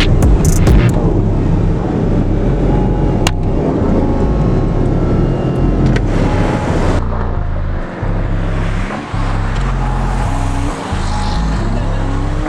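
A car driving at speed, with steady engine and road noise and the engine's revs rising and falling through the second half. A heavy bass line from music runs underneath.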